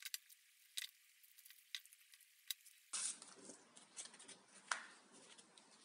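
Faint crinkling, clicks and light taps of double-sided tape and a paper-backed sandpaper disc being handled and pressed onto a hard-disk platter.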